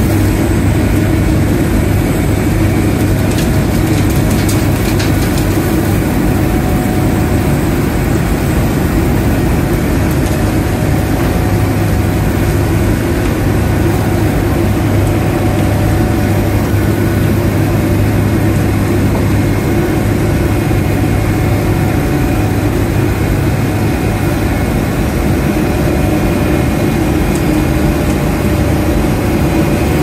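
Heavy diesel road-construction machinery running steadily, a constant low hum without change in pitch or level, with a few faint ticks in the first few seconds.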